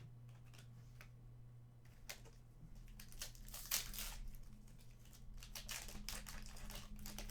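Trading-card pack wrapper crinkling and tearing, with cards rustling and clicking as they are handled, busiest a few seconds in, over a faint steady low hum.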